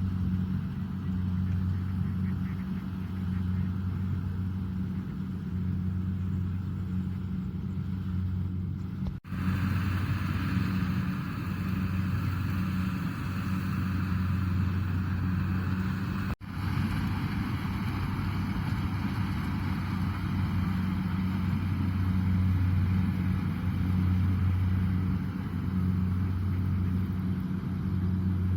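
Kubota DC-70 combine harvester running steadily while harvesting rice: a constant diesel engine drone with a hiss of working machinery above it. The sound drops out for an instant twice, about a third of the way in and just past halfway.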